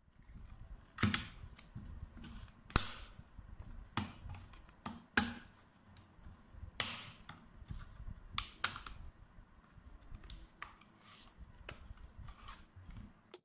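Plastic parts of a round LED panel light clicking and knocking as the front cover is fitted and the panel is handled: irregular sharp clicks, the loudest about a second in, near three seconds and near seven seconds.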